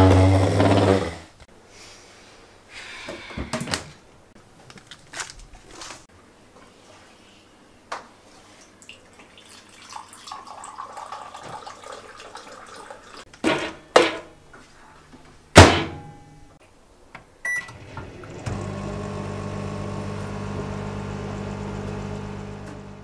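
A wooden chair scraping across a wooden floor at the start, then water pouring into an instant noodle cup, a few sharp clunks, and a short beep. For the last few seconds a microwave oven runs with a steady hum, then stops.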